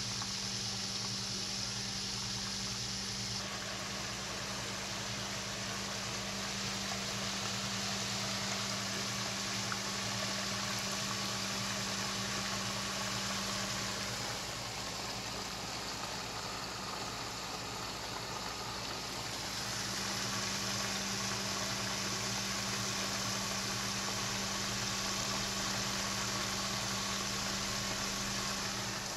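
Flour-coated chicken legs frying in a pan of hot oil, sizzling steadily, over a low steady hum that drops out for a few seconds in the middle.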